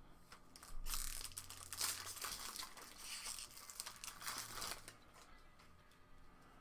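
Foil wrapper of a Magic: The Gathering booster pack being torn open and crinkled, a dense crackling that lasts about four seconds from a second in, then fades to quiet handling of the cards.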